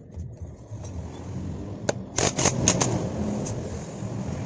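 A quick cluster of sharp metal clicks and clinks about two seconds in, as the loosened flywheel magnet rotor of a Honda Grand engine and its puller are handled to draw the rotor off the crankshaft. A steady low hum runs underneath.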